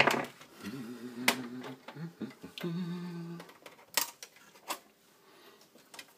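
Sharp clicks and taps of hands handling cables, connectors and parts inside an opened micro hi-fi chassis, with two short hummed tones from a person in between.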